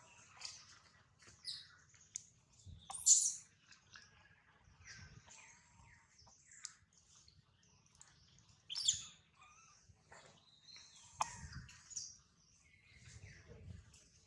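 Birds chirping, many short high calls, the loudest bursts about three seconds in and again about nine seconds in. A few low rumbles come in near the end.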